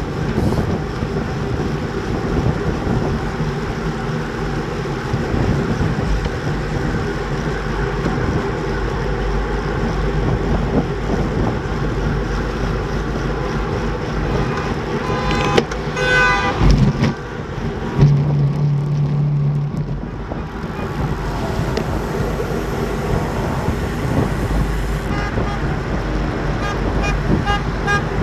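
Steady rush of wind and road noise on a road bike's camera at 40 to 50 km/h in a racing bunch, with a brief pitched sound about sixteen seconds in and a rapid ticking near the end.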